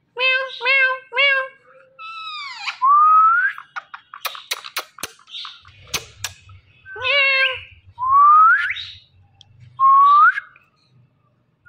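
Indian ringneck parrot calling: three short squawks, then a series of rising whistles, with a few sharp clicks in the middle.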